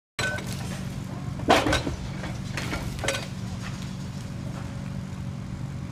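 An excavator's diesel engine running steadily during a concrete bridge demolition, with a few clanks and crashes of broken concrete. The loudest crash comes about a second and a half in.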